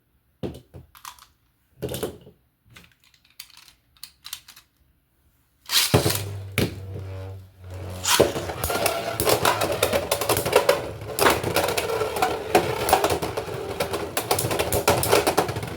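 Beyblade X spinning tops in a plastic stadium: a few separate clicks and taps, a launch about six seconds in, then from about eight seconds on dense, rapid clattering as the tops collide and grind around the stadium.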